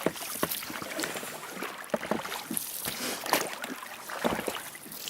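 Oars dipping and splashing in the water around a small rowboat, with irregular splashes and light knocks.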